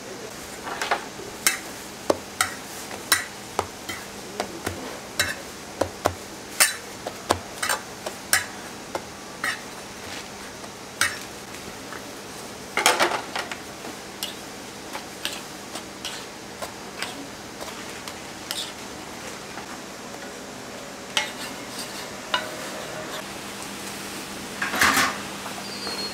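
Metal utensils clicking and scraping on a flat iron griddle as hotteok are pressed and turned: sharp clacks about once or twice a second for the first ten seconds or so, a short clatter a little later, then scattered clicks and a second clatter near the end. Under it runs a steady low hum and a light hiss.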